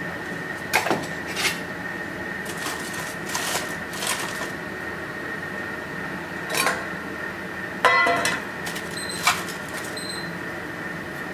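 Kitchen handling sounds: several sharp clicks and clatters, with a short metallic ring about two-thirds through, from a knife and a metal roasting tray while beetroot is unwrapped from foil. A steady high-pitched hum runs underneath.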